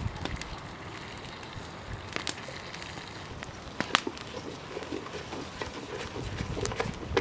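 Wooden spoon stirring and mashing rice mixed with egg in a metal cooking pot, a run of short, quick scraping, squishing strokes in the second half, with scattered sharp clicks of the spoon against the pot.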